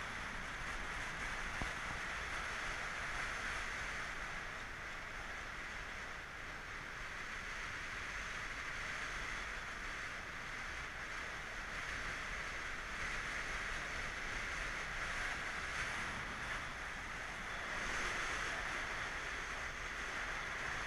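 Steady rushing of wind over a bicycle camera's microphone, mixed with tyre noise on asphalt, while coasting downhill. The rush swells a little now and then.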